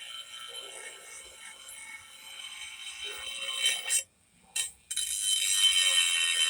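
Dremel rotary tool on low speed grinding the edge of a steel lawn mower blade: a steady high whine with grinding noise. It stops for nearly a second just past the middle, with one short burst, then starts again louder.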